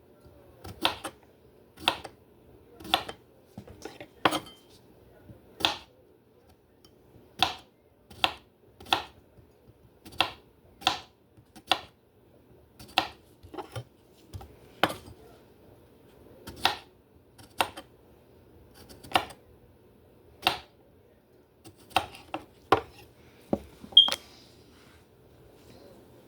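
Kitchen knife chopping vegetables on a cutting board: sharp knocks of the blade on the board, roughly one a second at an uneven pace.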